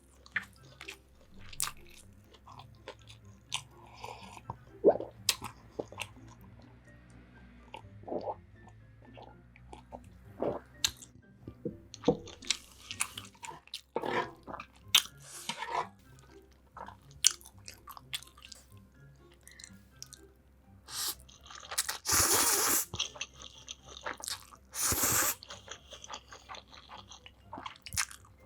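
Close-miked eating: a person chewing and biting into crunchy food, with crisp crackles throughout and a louder run of crunching about three quarters of the way through.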